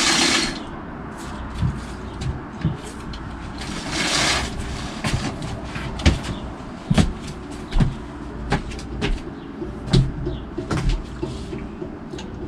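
A sliding glass patio door running along its track, at the start and again about four seconds in. This is followed by a run of short, sharp clicks and knocks.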